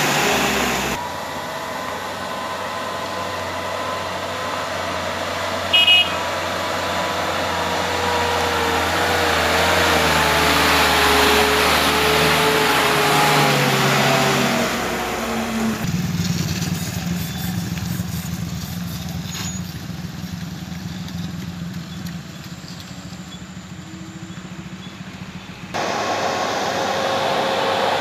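Cargo trucks' diesel engines running as they pass close by one after another, the engine note slowly falling. A short horn toot about six seconds in.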